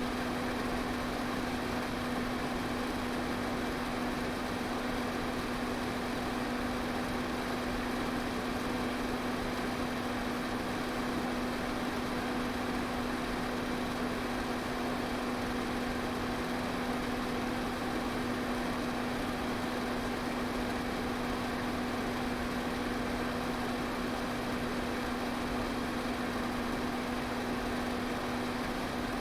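Electric fan running steadily: a constant rush of air with a steady low hum from its motor.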